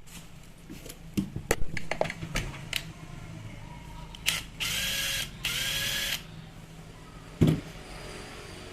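Clicks and knocks of metal and plastic tool parts being handled, then two short bursts of a small power-tool motor whirring, each about 0.7 s long and each rising quickly in pitch as it spins up. A single loud knock follows near the end.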